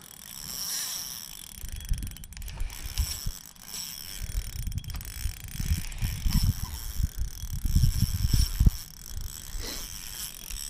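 Fishing reel cranked steadily while a hooked fish is reeled up, with a gear-like whirr. Low uneven rumbling and thumps, strongest in the second half, come from handling or wind on the microphone.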